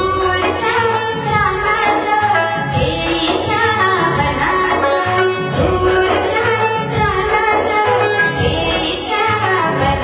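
A girl singing a song over instrumental accompaniment with a steady beat.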